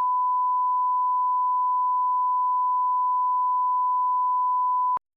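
Broadcast line-up reference tone accompanying colour bars: a single pure, steady beep held at one pitch, cutting off abruptly near the end.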